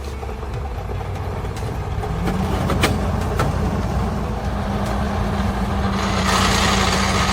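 Logging truck engine running under load on a muddy slope, its pitch rising about two seconds in and then holding steady. A few sharp clicks come near three seconds, and a hiss grows louder about six seconds in.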